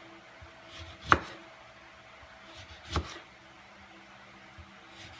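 Kitchen knife slicing a lemon into thin rounds on a plastic cutting board: sharp knocks of the blade meeting the board, the loudest about a second in and another about three seconds in, with fainter ones between.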